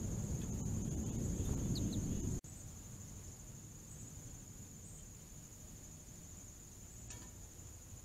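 Steady high-pitched trilling of an insect chorus. Under it for the first two and a half seconds runs a low rumble of background noise that cuts off abruptly, and there is a faint click near the end.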